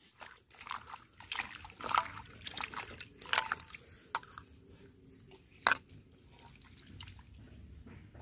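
Water sloshing and dripping in a vessel, with irregular sharp splashes, the loudest about two, three and a half and almost six seconds in.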